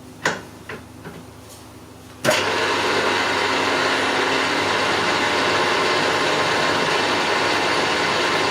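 A few light clicks, then about two seconds in a milling machine's spindle starts abruptly and runs steadily at speed, centre-drilling a small centre hole.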